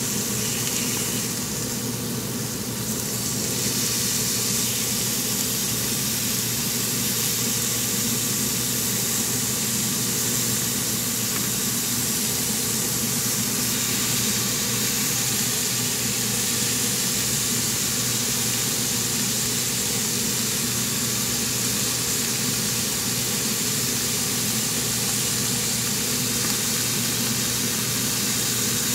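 Beef slices, pine mushroom slices and garlic cloves sizzling in a frying pan, a steady hiss, over a steady low hum.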